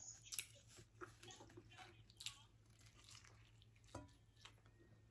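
Faint chewing and biting into a toasted ciabatta-bread pizza: soft, irregular crunches of crust with mouth sounds, the loudest about half a second in.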